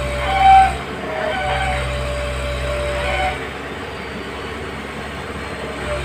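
Hyundai wheeled excavator's diesel engine running under load with a steady hydraulic whine, and a brief louder whine about half a second in. A little over three seconds in the whine stops and the engine drops to a lower, quieter drone.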